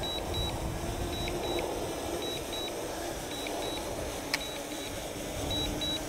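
DJI Mini 2 return-to-home warning beeps: a high double beep repeating about once a second, over a low rumble of wind on the microphone and a faint steady hum.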